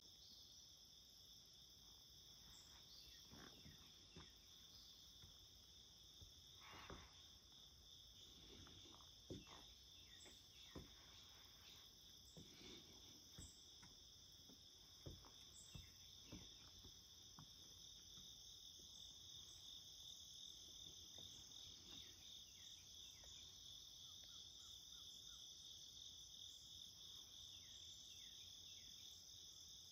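Steady chorus of insects singing in the forest, a continuous high-pitched trill at two pitches. A few short soft knocks are scattered through the first half.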